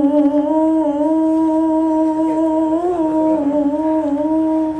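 A woman's voice reciting the Quran in the melodic tilawah style, holding one long note almost level in pitch, with a small ornamental turn about three seconds in.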